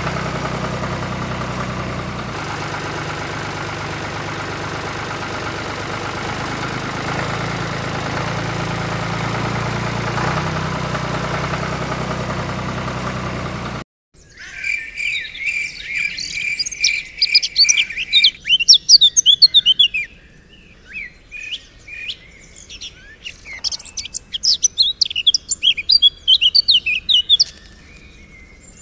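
An engine runs steadily, then cuts off suddenly about halfway through. Birds then chirp and twitter in quick, loud runs, opening with a fast string of repeated notes.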